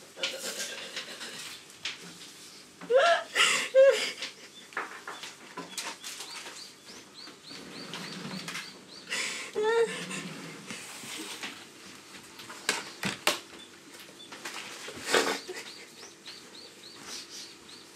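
A woman crying hard: ragged, gasping sobs with two loud wailing cries, about three seconds in and again near ten seconds. Runs of quick, repeated high chirps sound faintly behind her twice.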